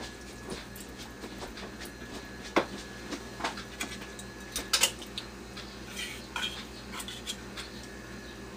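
Scattered light clinks and scrapes of kitchen utensils against a glass mixing bowl while tuna is worked into it. A sharper clink comes about two and a half seconds in, and a few more come near the middle.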